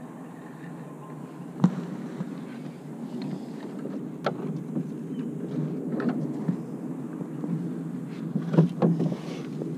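Several sharp knocks and clicks from handling a fishing rod and spinning reel in a canoe, the loudest about a second and a half in and a double knock near the end, over a steady low rumble.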